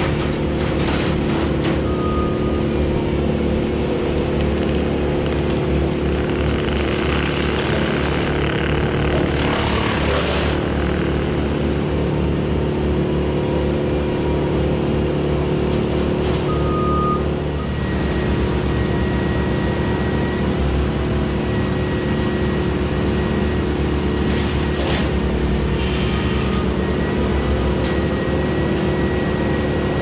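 Vehicle engine idling steadily close by, with a couple of short high electronic beeps from machinery.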